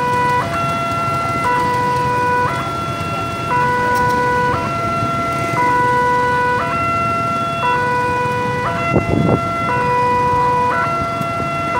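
Railroad crossing warning alarm sounding: an electronic two-tone chime switching between a lower and a higher note about once a second without a break, warning that a train is approaching and the barrier is down. Road traffic noise runs underneath, with a brief louder burst of it about nine seconds in.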